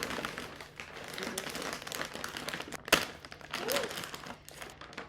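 Packaging crinkling and rustling as a parcel is opened by hand, with a sharp snap about three seconds in.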